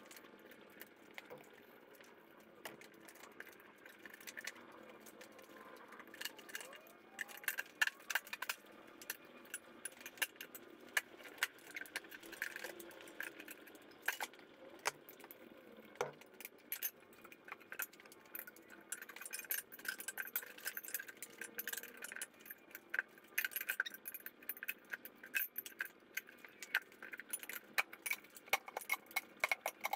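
Steel mount/demount bar clinking and scraping against the wheel rim and the Harbor Freight manual tire changer as a stiff trailer-tire bead is levered onto the rim: a run of irregular metallic clicks and clinks, starting about four seconds in and growing busier toward the end.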